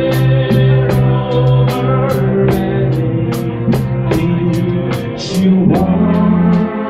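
Live rock 'n' roll band playing: electric guitars and electric bass over a drum kit keeping a steady beat.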